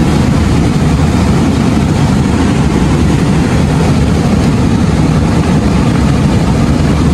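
Rushing water of a waterfall on a mountain river, close by: a loud, steady, deep roar that does not let up.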